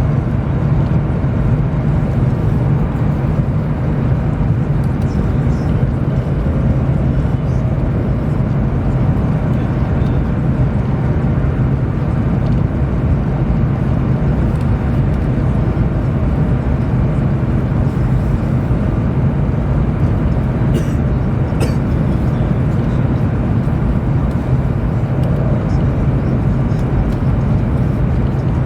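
Steady low rumble inside the cabin of a Chinese high-speed train running at speed, with a couple of faint ticks about two-thirds of the way through.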